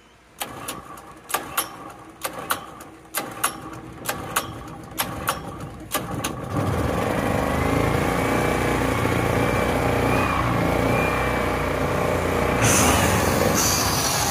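Small Kingcraft 98cc generator running, with a series of sharp clicks for the first few seconds. From about six and a half seconds the Remington electric pole saw's motor runs steadily on the generator's power with a whine, loading the generator; a hiss rises near the end. The generator afterwards needs setting to run a little higher.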